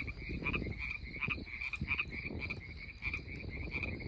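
A chorus of frogs croaking at night, a steady run of short, rapidly repeated calls, over low rumbling handling noise.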